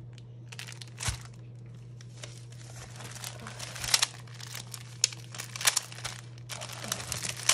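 Small plastic bags of diamond-painting drills crinkling and rustling as they are handled and shuffled, in irregular bursts, over a low steady hum.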